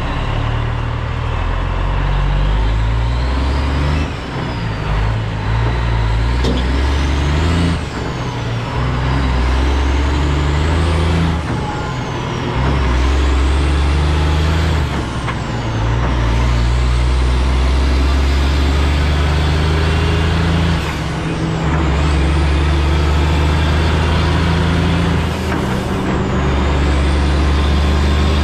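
Western Star semi truck's diesel engine pulling a heavy lowboy load and upshifting through the gears about six times, the engine note rising and then dropping at each shift. A high whine climbs with the revs and falls away at each shift.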